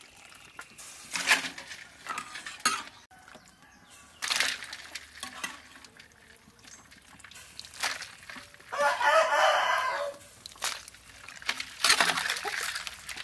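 A rooster crows once, a wavering call of about a second and a half, about nine seconds in. Scattered sharp clinks and knocks come before and after it.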